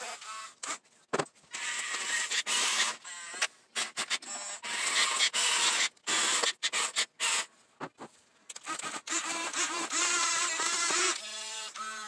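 Small electric motors and plastic gearboxes of 1/24 scale RC construction models whining in short runs that start and stop with the pitch shifting, as the articulated dump truck drives and the excavator tracks and swings.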